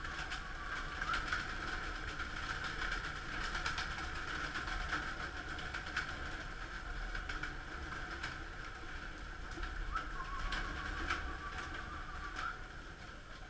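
A flock of domestic pigeons in a loft flapping and landing at the feeding troughs: fluttering wings, sharp wing claps and knocks scattered throughout, with some cooing. A steady high-pitched hum runs underneath.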